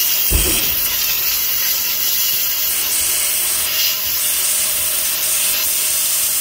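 150-bar, 2500 W electric pressure washer spraying, its water jet making a loud, steady hiss, with a brief low thump about half a second in.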